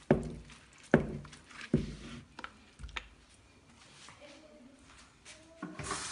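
Four sharp knocks with a dull thud in the first three seconds as an aluminium pot and its ladle are handled on a stone counter. Near the end, a steady rush of running water starts.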